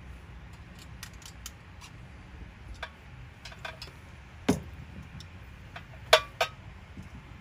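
Hex key and small wrench clicking and tapping on the carburetor-to-intake-manifold screws as they are tightened. There are scattered light metal ticks, and three louder clinks: one about four and a half seconds in and two close together about six seconds in.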